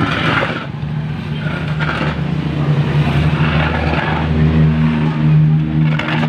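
A motor vehicle engine running steadily, its low hum growing louder in the second half, with a few brief scraping, rustling noises over it.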